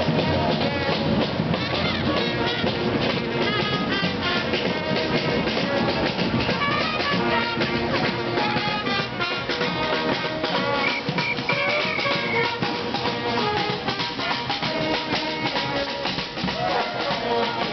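Street brass band playing live: horns over busy marching drums with a steady beat, and a high note held for a moment about eleven seconds in.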